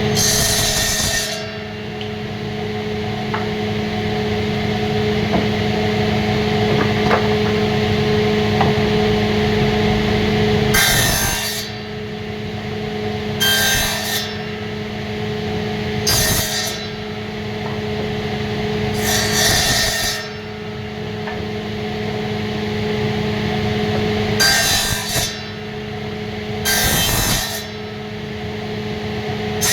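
Wood being cut or worked with a tool in about seven short, hissy strokes of roughly a second each, a few seconds apart, over a steady hum.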